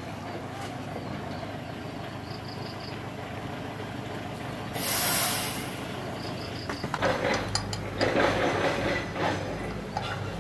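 A short burst of hissing about halfway through, then metal parts of a motorcycle wheel hub clattering and knocking as they are handled.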